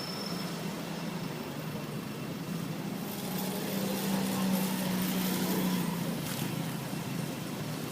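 A motor vehicle's engine running with a steady low hum, growing louder from about three seconds in and easing off after about six seconds, as if the vehicle passes close by.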